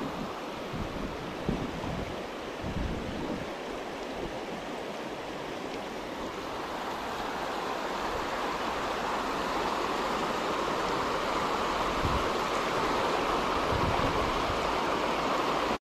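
Shallow river rapids rushing over rocks: a steady rush of water that grows louder from about halfway through.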